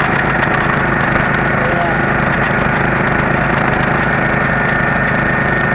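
Small engine running steadily at a constant pace, driving a homemade water-well drilling rig while it drills.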